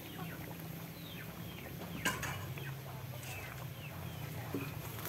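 Chickens clucking in short, downward-sliding calls over a steady low hum, with one sharp knock about two seconds in.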